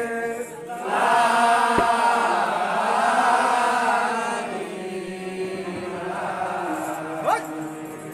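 A group of men chanting a devotional kirtan in chorus, with a swell that grows louder about a second in and eases off past the middle. A sharp knock sounds near the two-second mark.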